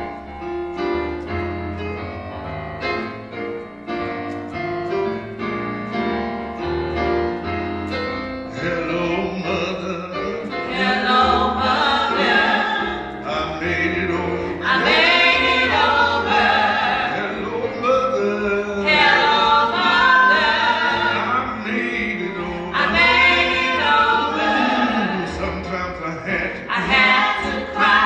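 Small gospel vocal group singing in harmony with keyboard accompaniment. The keyboard plays alone at first, and the voices come in about a third of the way through, making the music louder.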